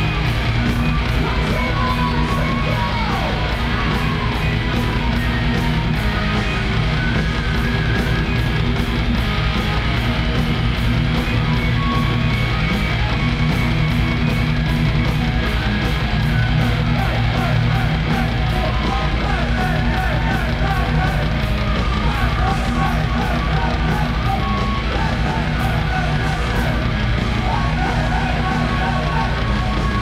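Heavy metal band playing live: distorted electric guitar over driving drums, with cymbal and snare hits in a fast, steady beat.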